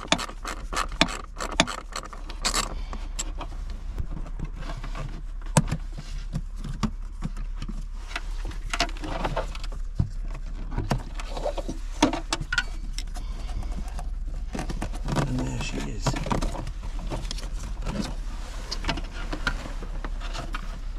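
Scattered clicks, knocks and rattles of plastic dashboard trim and small screws as the under-dash panel of a Fiat Ducato is worked loose by hand to reach the cabin pollen filter, over a steady low hum.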